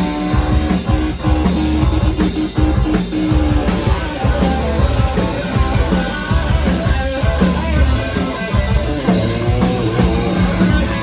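Rock band playing live: electric guitars, bass and drums with a steady beat, mostly instrumental.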